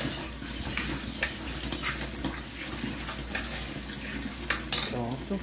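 Raw rice grains stirred by hand in an aluminium pot as they toast over the flame: a continuous grainy rustle with scattered small scrapes and ticks of grains against the pot.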